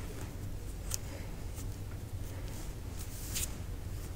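A few brief soft rustles of makeup products being handled, over a steady low hum.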